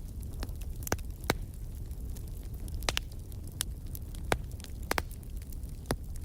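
Wood fire crackling in a fireplace: irregular sharp pops, roughly one a second, over a steady low rumble of the burning fire.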